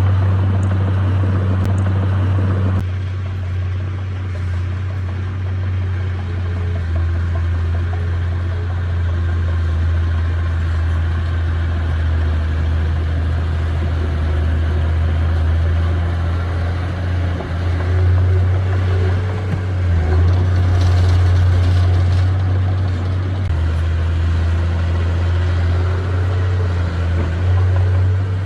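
Diesel engine of a heavy earthmoving machine running steadily with a deep hum, its note shifting as the load changes a few times, most noticeably in the second half.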